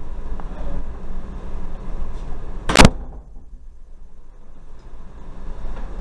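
A single sharp, loud knock a little under three seconds in, over a steady low rumble; the rumble drops away for a couple of seconds after the knock.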